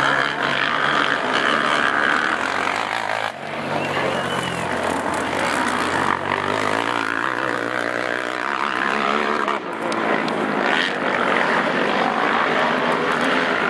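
Racing quad (ATV) engines running hard at high revs as riders go by on a motocross track, the pitch rising and falling with the throttle. The sound changes abruptly about three seconds in.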